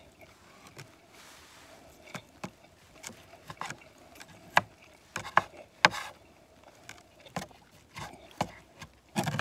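A man eating grilled steak: irregular sharp clicks and taps of chewing and of handling the food, about ten in all, the loudest a few near the middle.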